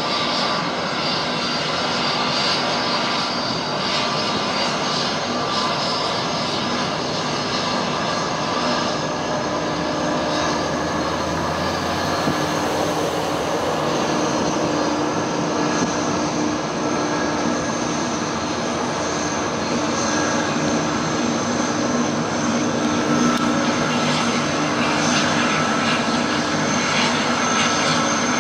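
Airbus A330's twin jet engines at taxi power, a steady whine with several held tones, growing a little louder near the end.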